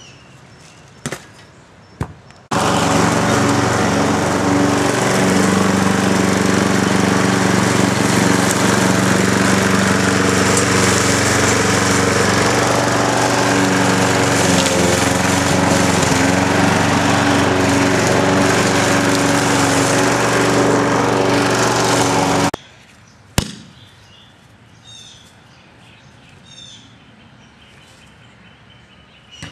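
A small engine running steadily and loud for about twenty seconds, starting and stopping abruptly. A few knocks come before it, and one sharp knock just after it stops, followed by birds chirping.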